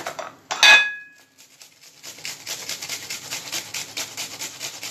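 Onion being grated on a flat metal hand grater over a plate, in quick, even rasping strokes. About half a second in there is one sharp clink with a brief ring, then a short pause before the grating strokes resume.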